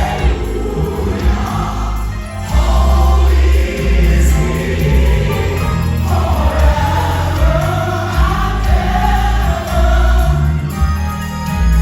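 Gospel music performed live: a group of voices singing together over a band with a heavy bass line.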